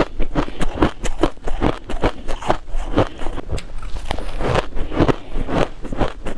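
Close-miked crunching of crushed shaved ice being bitten and chewed, a rapid run of crisp crunches several times a second.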